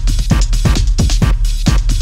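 Background electronic dance music with a steady beat, a low kick drum about twice a second and lighter percussion between.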